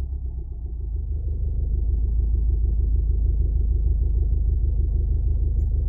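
2006 Subaru WRX's turbocharged flat-four engine running, heard from inside the car: a steady low rumble with a fast, even knocking pulse through it. The owner fears the knock is a spun bearing after the engine overheated without coolant.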